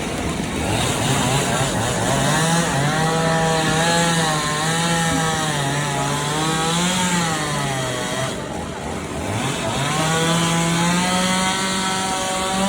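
Chainsaw engine running at high revs, dropping in pitch about eight seconds in and revving up again, over a steady hiss of heavy rain.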